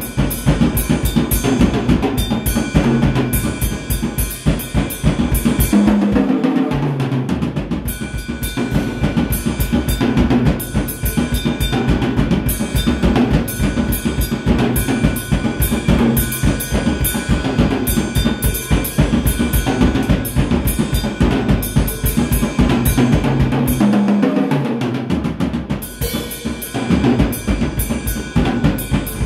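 Acoustic drum kit played hard: rapid, continuous bass drum strokes under snare hits and cymbal wash. Twice, about six seconds in and again near the end, the bass drum stops for a fill around the toms that falls in pitch.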